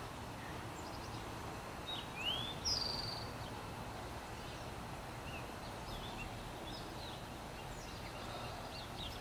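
Outdoor ambience: scattered short bird chirps over a steady low background rumble, with a louder rising chirp and a brief buzzy trill about two and a half seconds in.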